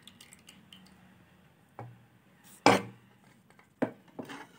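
A few clunks and taps of a bowl and spoon, the loudest a little under three seconds in.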